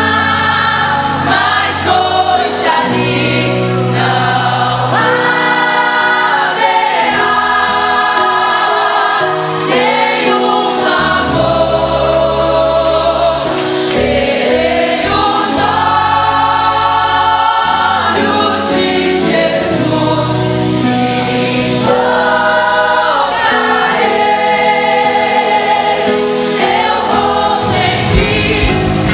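Church choir singing a Christian gospel medley in several voices, with held low bass notes underneath.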